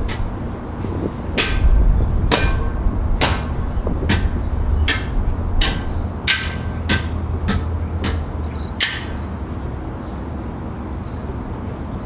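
A small metal shovel digging into hard ground: about a dozen sharp, slightly ringing strikes of the blade, roughly one every three-quarters of a second, which stop a few seconds before the end, over a steady low rumble.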